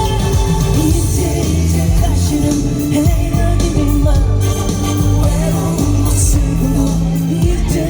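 Live band playing a Korean pop song, loud and steady, with a melody line over bass and drums.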